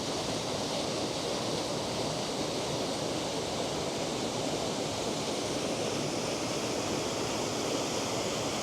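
Aira Force waterfall: a steady, even rush of falling water.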